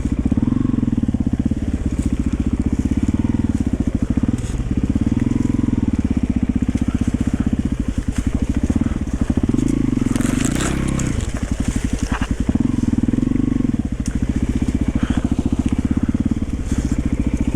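Yamaha XT350's single-cylinder four-stroke engine running as the bike is ridden slowly, with the throttle opened and eased off several times.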